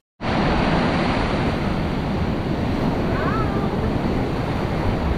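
Ocean surf breaking on a rocky shoreline, a steady rush of noise with wind buffeting the microphone.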